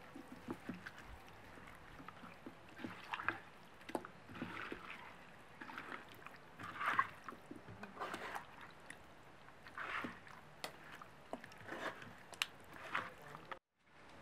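Hands squeezing and turning raw chicken wings and potato pieces through spice powder in a clay bowl, making irregular wet squelches and rustles. The sound cuts out briefly near the end.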